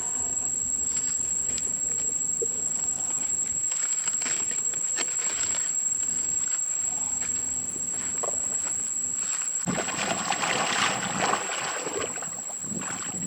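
Insects, likely crickets, chirring in one steady high-pitched tone, with scattered clicks. Near the end a louder stretch of rustling noise lasts about two seconds.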